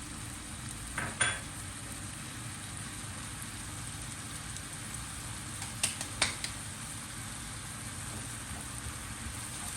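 Chopped onions and garlic sizzling as they fry in a pot, with a utensil clicking against the pot a few times about a second in and again around six seconds in.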